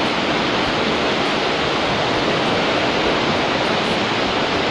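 Underground stream rushing through a limestone cave: a steady, even noise of water flowing over travertine rimstone dams.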